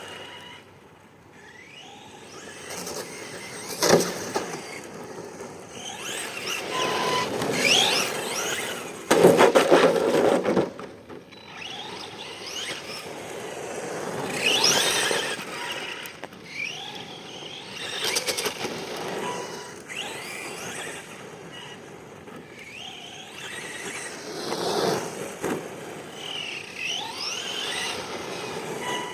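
Arrma Senton 3S RC truck's brushless motor whining up in pitch again and again as it accelerates, with tyre squeal and scraping on pavement. A sharp knock comes about four seconds in, and a loud rattling clatter around nine to ten seconds in.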